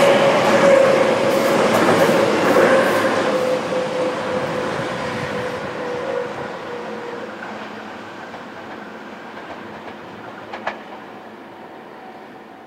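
Electric train on the Tobu Sano Line running over the rails and pulling away, its wheels clattering, with a tone that slides slowly down in pitch as the sound fades steadily.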